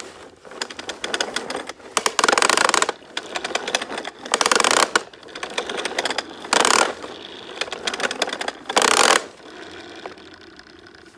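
Plastic toy push lawn mower clattering with rapid clicks as it is pushed back and forth, its wheel-driven mechanism rattling loudest in four surges.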